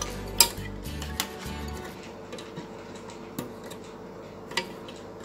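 Hard plastic model-kit runners clicking and knocking as they are handled, a few sharp clicks with the loudest about half a second in.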